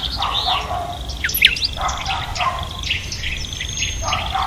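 Several birds singing and chirping, with a steady high trill and many quick rising and falling whistled chirps.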